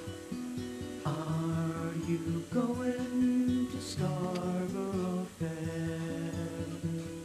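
Background music: an acoustic guitar picking a run of single notes that ring on.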